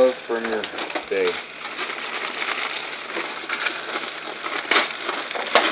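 Gift wrapping paper crinkling and rustling in a steady run of small crackles, with a couple of sharper rustles near the end.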